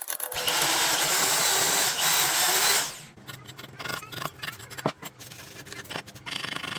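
A power tool runs at full speed for about two and a half seconds with a dense, hissing noise, then cuts off near the three-second mark. After that come scattered light metallic clicks and knocks as parts are handled.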